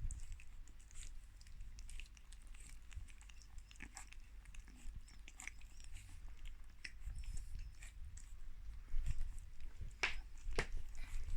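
Three-week-old Boston Terrier puppies eating their first meal: irregular small wet chewing and smacking clicks, with two louder clicks near the end.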